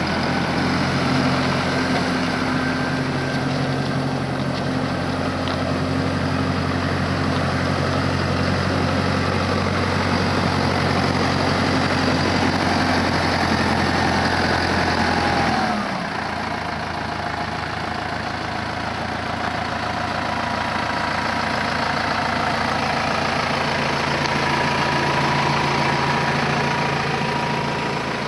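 The 4.9-litre four-cylinder diesel of a 2008 Massey-Ferguson 5480 tractor running steadily while the tractor drives. A little past halfway its engine speed falls, and it runs on lower and steady.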